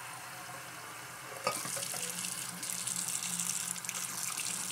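Bathroom tap running, its stream splashing into the sink basin. About one and a half seconds in there is a short knock, and after it the splashing is louder and brighter.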